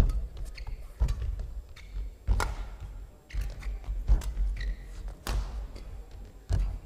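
Badminton rally: sharp racket strikes on the shuttlecock about once a second, the loudest right at the start, with thudding footfalls and lunges on the court floor and short shoe squeaks.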